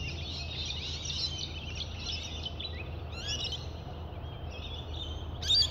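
Many small birds chirping and twittering continuously, overlapping one another, with a louder, sharper call near the end, over a steady low hum.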